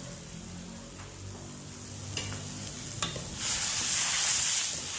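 A metal ladle stirs browned garlic into hot broth in a wok, with a couple of clicks from the ladle on the wok. From about three and a half seconds in, a loud sizzling hiss rises from the wok.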